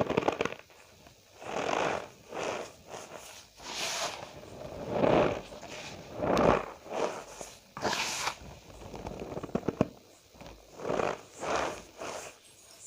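Cornstarch powder squeezed and pressed by hand, giving a series of squeaky crunches, about a dozen separate bursts with short pauses between.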